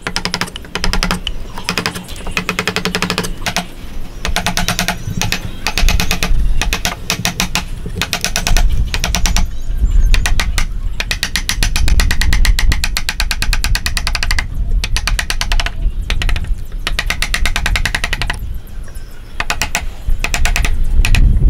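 A wood chisel paring hardwood by hand in repeated strokes. Each stroke is a rapid, ratchet-like train of ticks as the edge scrapes and cuts across the grain, lasting from about half a second to two seconds with short pauses between.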